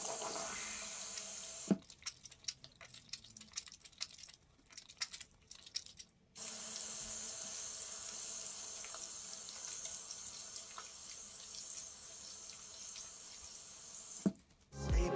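Tap water running into a sink over hands being washed. About two seconds in the steady flow gives way for a few seconds to scattered splashes and clicks, then runs steadily again until it cuts off near the end.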